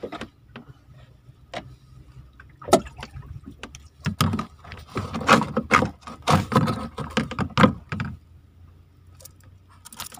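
Irregular knocks, clicks and rustles of hands working a fishing hand line against the side of a small wooden boat, thickest and loudest in the middle, over a faint low hum.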